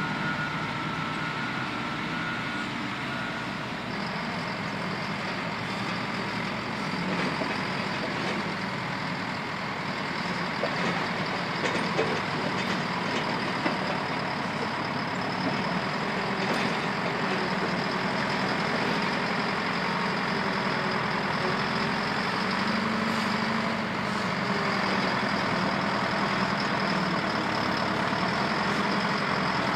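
Heavy diesel construction machinery running steadily at a dig site, with a few short knocks about halfway through.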